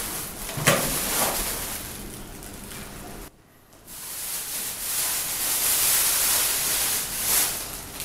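Plastic wrapping bag rustling and crinkling as it is handled and pulled off a slit lamp, with a brief break a little over three seconds in.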